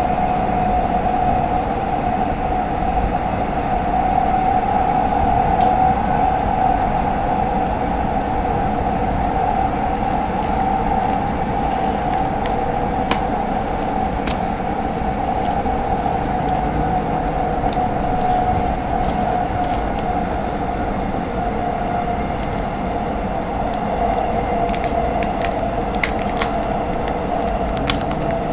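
Cabin noise inside a moving electric commuter train on the Seohae Line: a steady rumble with one held mid-pitched whine. Scattered sharp clicks come in the second half, more of them near the end.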